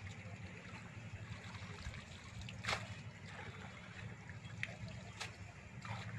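Water trickling and sloshing as people wade and pull a fishing net through shallow river water, with a few short sharp splashes, the loudest a little under three seconds in, over a low steady rumble.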